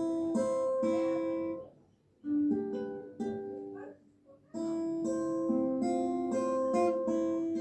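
Acoustic guitar played solo as a song's introduction: single notes and chords plucked and left to ring, with two brief pauses about two and four seconds in.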